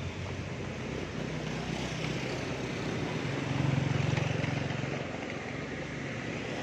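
A motor vehicle engine running steadily, growing louder to a peak about four seconds in and then fading, as it passes by.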